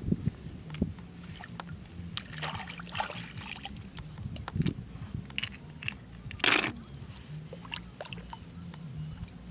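Hands rummaging through wet grass and mud at the water's edge while picking snails: scattered small clicks and scrapes with rustling, and one louder short rustle or splash about two-thirds of the way through.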